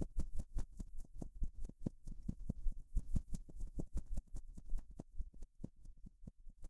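Rapid, irregular patter and thuds of many small feet scurrying away together, thinning out near the end: young dragons leaving their den.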